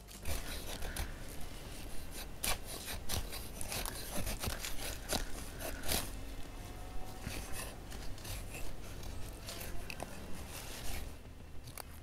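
A large knife shaving thin curls off a dry wooden stick in repeated scraping strokes, carving tinder shavings to start a campfire. The strokes thin out near the end.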